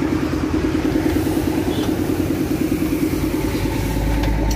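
Diesel truck engine idling with a steady, even pulse. A deeper low rumble comes up near the end.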